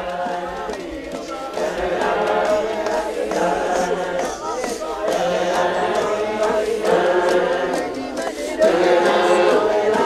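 Many voices singing together in a chant-like choir without instruments, growing louder near the end.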